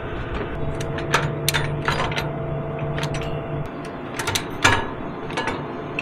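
Dry soybean pods crackling and snapping in an irregular run of sharp clicks, over a steady engine hum. The pods are dry enough for harvest.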